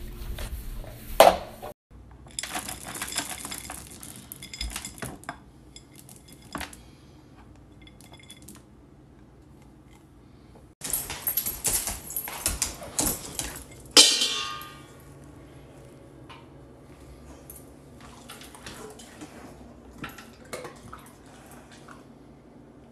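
Stainless-steel dog bowls clinking and rattling with dry dog food, in several separate bursts. About two thirds of the way through comes one sharp clang of a metal bowl that rings on briefly.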